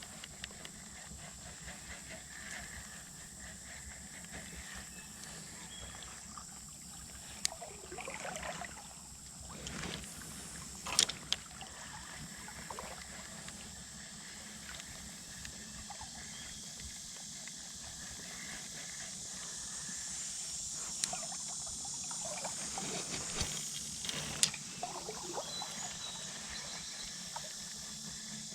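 Shallow creek water trickling steadily, with a high steady hiss over it. A few brief swishes and several sharp clicks come and go through it, typical of wading and handling fishing tackle.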